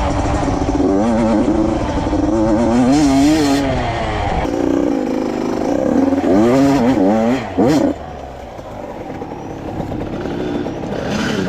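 85cc two-stroke dirt bike engine revving, its pitch rising and falling repeatedly as the throttle is worked. It goes noticeably quieter about eight seconds in.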